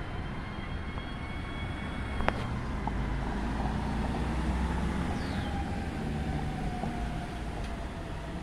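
Road traffic passing close by: a car and then a pickup truck drive past with a steady low rumble of engines and tyres. Over it, a faint high tone slowly falls in pitch.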